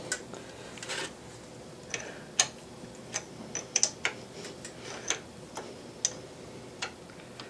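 Small steel wrench clicking against the gib adjusting screws and lock nuts on an Atlas lathe's compound slide: short, sharp metal clicks at an irregular pace, about two a second. The screws are being backed off because the gibs are binding too tight.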